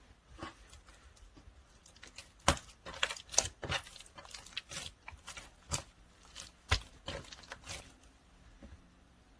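Melted ice slime being handled: irregular sticky pops and clicks as it is pressed and pulled apart, the loudest about two and a half seconds in and again near the middle.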